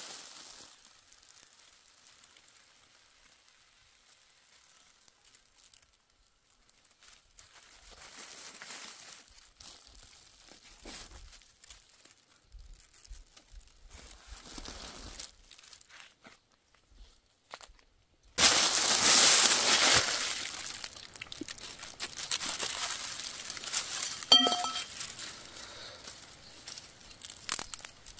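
Handling noise from a spit-roasted rat and the plastic bag beside it: faint rustling at first, then loud crinkling and tearing that starts suddenly about two-thirds of the way in and goes on unevenly.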